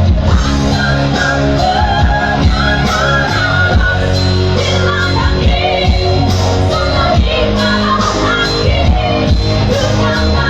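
A woman singing a Batak song over band accompaniment with bass and other instruments.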